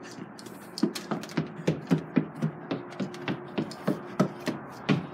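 Quick footsteps on wooden stairs and decking, about three steps a second, starting about a second in.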